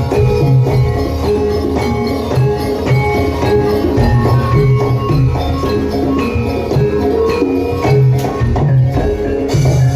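Javanese gamelan music accompanying a jaran kepang dance: repeated struck metal tones over a steady pattern of low drum strokes, with jingling percussion on top.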